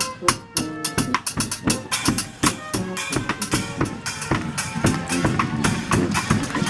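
Street band playing a parade tune: a busy drum beat of bass drum and snare, with horns holding notes over it.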